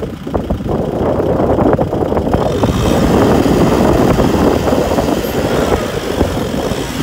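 Kubota tractor's diesel engine running hard under load while its tyres churn and splash through flooded mud, hauling a trailer of rice sacks. The noise grows fuller about two and a half seconds in.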